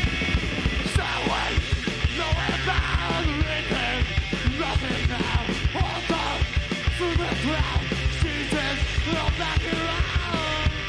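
Punk-rock band playing live: a singer yelling into the microphone over fast drums, electric guitar and bass guitar.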